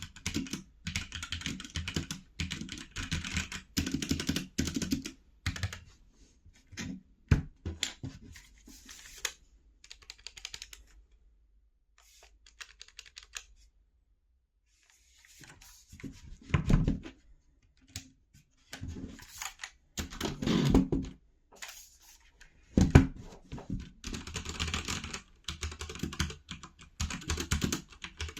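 Typing on a mechanical keyboard with linear red switches: fast runs of key clacks, a pause of a few seconds near the middle, and a few louder single strikes.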